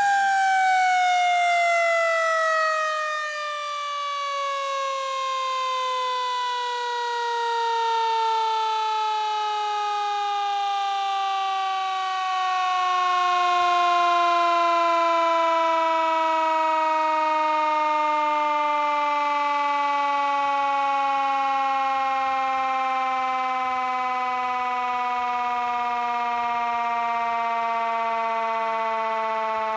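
Federal Q2B mechanical siren winding down: one long wail that falls slowly and smoothly in pitch as the rotor coasts, still sounding at the end.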